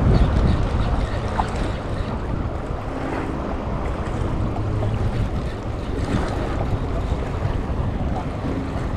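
Wind buffeting the microphone, over the wash of sea waves.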